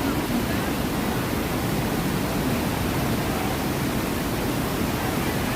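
Steady rush of water from a white-water raft ride's rapids and falls: an even wash of noise that holds at one level throughout.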